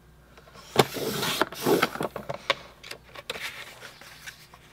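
A sharp click about a second in, then a scraping swish as a paper trimmer's sliding blade is pushed along its track, cutting through a sheet of cardstock. Several lighter clicks follow as the cut pieces are handled.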